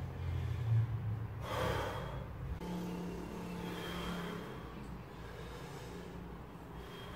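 A weightlifter breathing heavily while setting up at the barbell, with one sharp, loud breath about a second and a half in. A low hum is under the first second or so.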